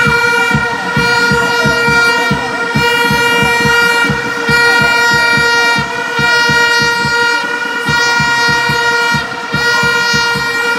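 A fan's horn held on one steady high note with brief breaks, over a fast low beat of about five thumps a second and crowd noise in a packed stadium.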